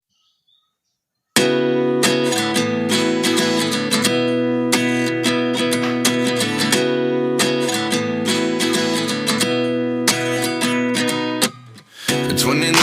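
Background music: an acoustic guitar intro strummed and plucked in a steady rhythm. It starts after about a second of silence and drops out briefly near the end before coming back fuller.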